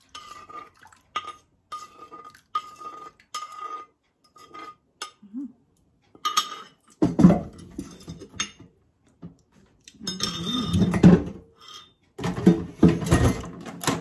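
Metal spoon scraping and tapping against a clay mortar with a short ringing clink, a little under twice a second, over the first few seconds. In the second half come louder knocks and clatter as the heavy mortar is handled and set down.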